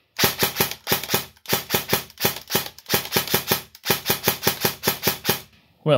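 Airsoft electric gun gearbox cycling on semi-auto: a quick run of evenly spaced sharp clicks, several a second, that stops near the end. The gun keeps cycling without jamming, so the fault will not reproduce.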